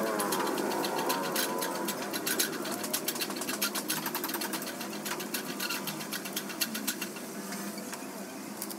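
Hand-cranked coil winder spinning as copper magnet wire is wound onto the formers of a pump motor's stator coils, a rapid, irregular clicking rattle.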